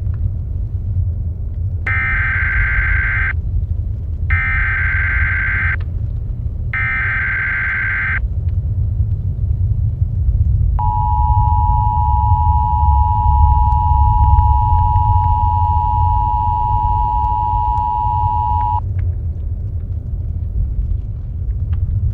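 Emergency Alert System sequence. First come three SAME header bursts of digital data tones, each about a second and a half long with about a second between them. Then the two-tone attention signal sounds steadily for about eight seconds. A continuous low rumble runs underneath.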